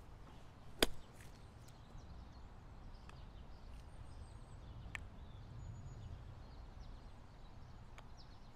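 A golf club striking a ball with one sharp click about a second in, then two fainter clicks of a putter striking the ball, around five seconds in and near the end, over a faint low rumble.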